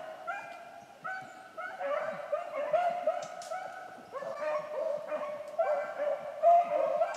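A pack of rabbit hounds baying on the trail of a rabbit, several dogs giving short overlapping calls in a steady run.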